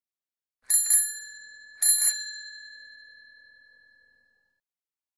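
Bicycle bell rung twice, each a quick double ring, about a second apart; the second ring fades out over about two seconds.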